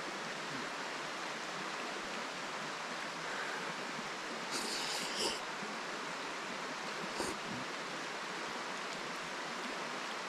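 Steady rushing of a shallow rocky creek. About halfway through come a few short hissy eating sounds, then a single click a couple of seconds later.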